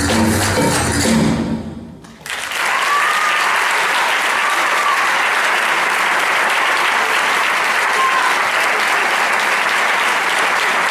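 The stage music fades out about two seconds in, and a theatre audience breaks into steady applause.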